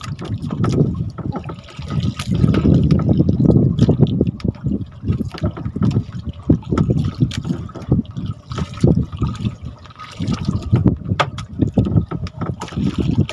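Water sloshing and splashing close by, swelling and easing every second or two, with scattered sharp knocks and clicks.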